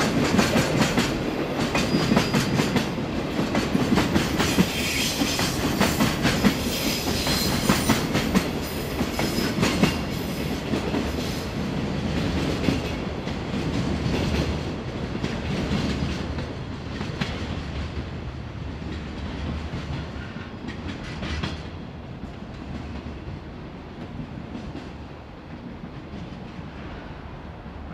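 Japanese freight train's flat wagons, empty container cars and then cars loaded with long rails, rolling slowly past over curved pointwork, their wheels clattering over the rail joints and points. The clatter is loudest and busiest in the first half and fades steadily as the train moves away.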